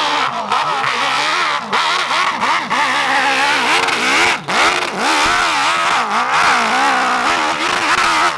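High-revving racing engines accelerating hard, their pitch climbing and dropping again and again through gear changes, with a brief dip in level a little past four seconds.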